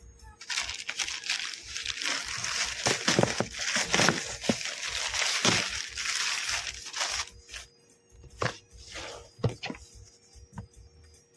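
Plastic packaging crinkling and rustling as it is handled and opened, with many small crackles. The crinkling stops about 7 s in, leaving a few light clicks and knocks.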